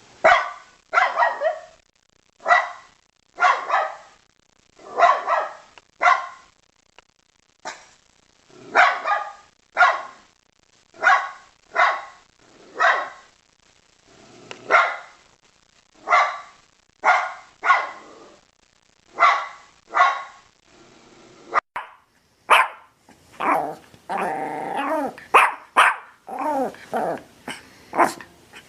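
Dog barking repeatedly, single and paired barks about once a second. About three-quarters of the way through, a different dog takes over with sharper barks and longer drawn-out sounds that glide in pitch.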